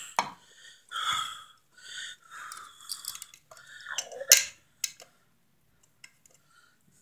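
Wires and a duplex receptacle being pushed into a steel electrical box: rustling and scraping of wire and plastic against metal, with a few sharp clicks, the loudest about four seconds in, then only faint ticks.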